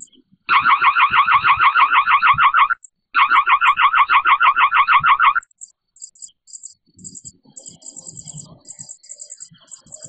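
Reolink RLC-830A security camera's built-in siren going off through its speaker: two loud bursts of about two seconds each, a rapidly warbling alarm tone with a short break between them. Faint high chirping follows.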